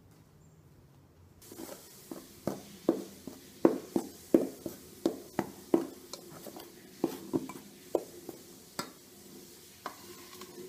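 Metal spoon stirring wheat flour in an enamel pot, clinking against the pot's sides in a run of sharp knocks, about two a second, starting about a second and a half in and thinning out near the end.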